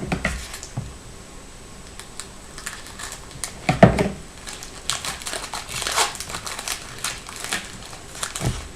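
Wrapper of a hockey card pack being torn open and crinkled by hand, in irregular crackles, with one brief louder sound about four seconds in.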